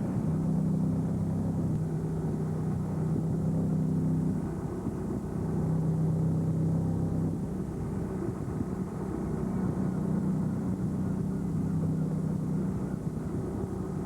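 Small fishing boat's engine running steadily under way, a low drone that dips slightly in level a couple of times.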